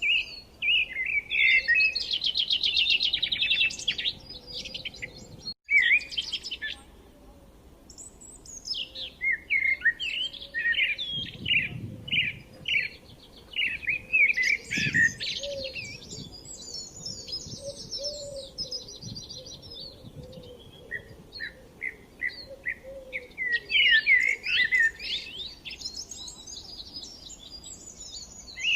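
Several songbirds chirping and singing at once in a dense, overlapping chorus of quick chirps and trills. The sound cuts out for a moment about five and a half seconds in.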